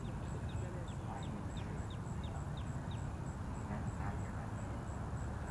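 A bird calling: a quick run of about nine short, high, falling chirps, roughly three a second, that stops about three seconds in. Under it is a steady low rumble and a faint, even high ticking.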